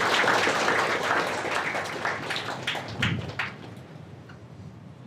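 Audience applauding, the clapping thinning to a few last claps and dying away about three and a half seconds in.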